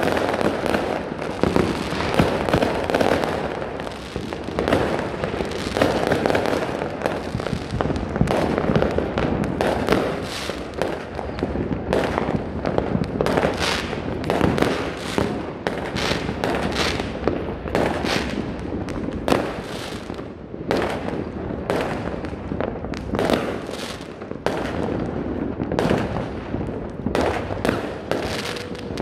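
Many fireworks going off at once: a dense, overlapping crackle of bangs that never lets up, with separate sharp bangs standing out more clearly in the second half.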